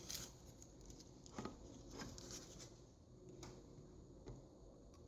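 Faint scattered ticks and light rustles of small hand-work on a circuit board. The ticks are few and short, over a low background hiss.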